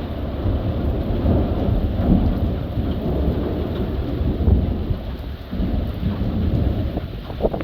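Thunder rumbling in long, rolling swells over steady heavy rain.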